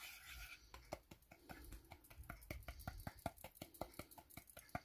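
Faint, quick clicking and scraping of a thin stirring stick against a small metal ladle as sugar is stirred over the heat while it melts for dalgona honeycomb candy.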